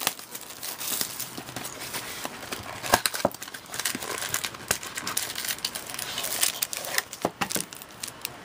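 Foil-wrapped trading card packs crinkling and rustling as they are pulled out of a hobby box and stacked by hand, with many light clicks and taps as the packs knock together. One sharper click comes about three seconds in.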